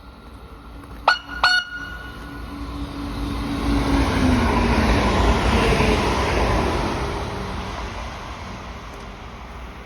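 Train horn giving two short toots about half a second apart. The train then passes, swelling to its loudest about midway and fading away, with a low hum that drops in pitch as it goes by.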